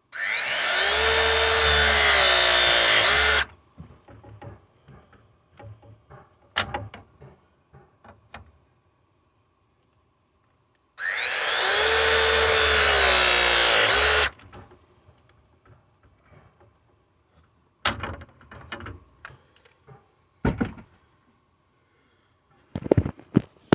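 Milwaukee M18 ProPress battery press tool running two full press cycles, each about three and a half seconds, its motor pitch sagging near the end of each as the jaws close on the fitting. Light clicks and knocks of handling the tool and pipe follow, busier near the end.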